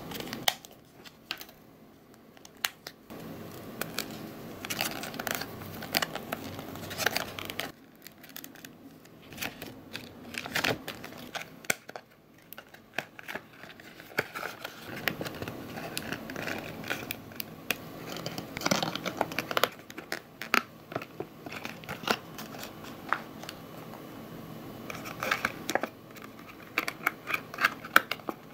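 Printed cardstock parts being folded, creased and slotted together by hand: irregular crinkling and rubbing with small sharp clicks and taps, easing off briefly now and then.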